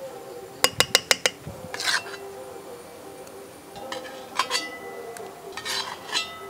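Metal ladle clinking against a steel bowl and scraping a brass pan as thick hot semolina sweet is spooned out; a quick run of about five sharp clinks about a second in, then softer scrapes and a few more clinks.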